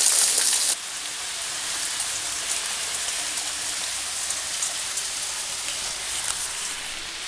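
Heavy rain pouring steadily, an even hiss. About a second in it drops quieter and is heard through a fly-screen window.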